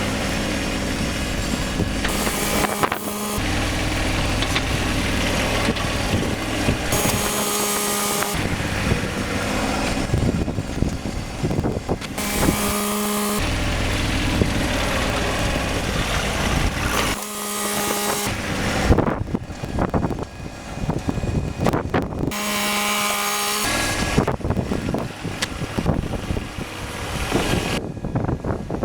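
John Deere 1025R compact tractor's three-cylinder diesel running under load while it pushes snow. The engine note holds steady, then changes abruptly every few seconds.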